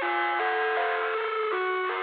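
Background music: a melody of stacked notes that step to new pitches a few times a second.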